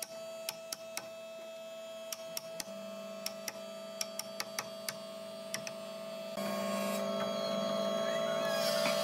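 Wooden mallet striking a steel chisel as it chops a mortise in hardwood: a quick, uneven run of sharp knocks. Under it runs a steady hum that gets louder about six seconds in.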